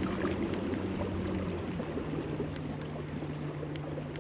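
Native Titan X 12.5 fishing kayak under way at about 4.6–4.7 mph: water rushing along the hull, with a steady low hum from its drive that drops slightly in pitch a little under two seconds in.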